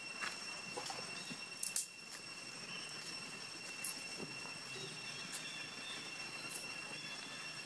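Forest ambience: a steady high-pitched insect drone holding at fixed pitches, with a few brief sharp clicks scattered through.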